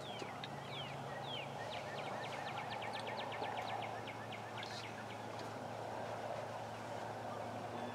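A small bird singing over steady outdoor background noise: a few separate down-slurred whistles, then a rapid run of short, evenly spaced notes about two to four seconds in.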